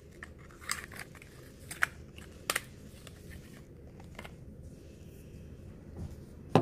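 Small cosmetic packaging being handled: a few short, sharp clicks and crinkles of a paper carton and a tube's cap, spread out over the first few seconds, then a louder knock at the very end.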